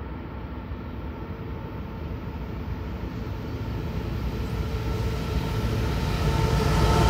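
Norfolk Southern diesel locomotive approaching, its low engine rumble growing steadily louder with a few faint steady tones over it.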